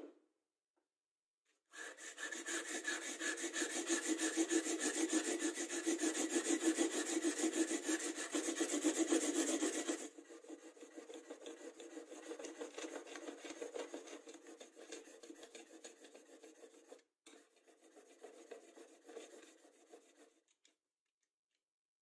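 Chisel bevel being honed on sandpaper in a homemade wooden roller jig: rapid back-and-forth scraping strokes of steel on abrasive. They start about two seconds in and are loudest at first. From about ten seconds in they are quieter on a finer-grit sheet, with a short break near the end before they stop.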